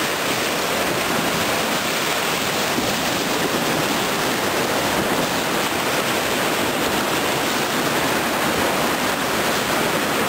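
Whitewater rapids rushing, a steady unbroken churn of fast water heard up close from a cataraft running through them.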